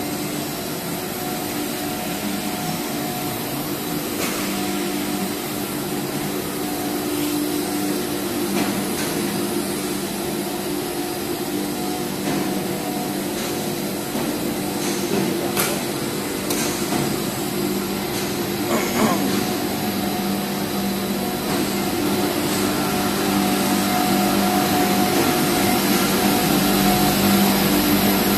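Steel wire reinforced PE pipe production line running: a steady machine hum with several held tones over a hiss, and a few sharp knocks here and there. It grows a little louder near the end.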